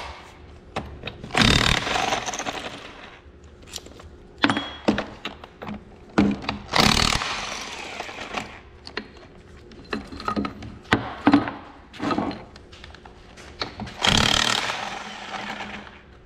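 Cordless impact wrench run in three bursts of a second or two each, loosening the bearing cap bolts on a tractor axle differential. Short metal knocks and clanks between the bursts.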